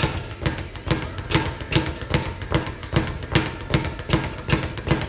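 Leather speed bag being punched in a steady rhythm, rattling against its rebound platform. There are strong hits about two to three times a second, with lighter rebounds between them.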